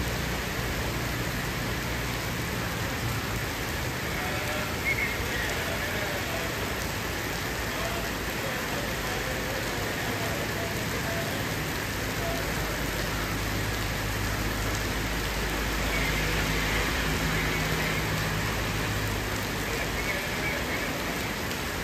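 Heavy rain pouring steadily onto paving, a continuous even hiss of a downpour, with a low steady hum underneath.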